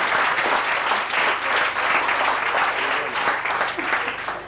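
Theatre audience applauding, dense clapping that tapers off near the end.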